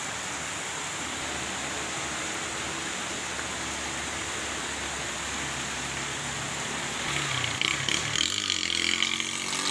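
Steady hiss of heavy rain and running floodwater, with a faint low engine hum midway. About seven seconds in, a louder, uneven noise comes in over it.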